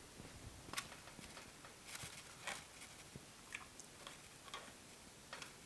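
Faint eating sounds: scattered clicks and taps of a fork in a foam takeout container, with chewing.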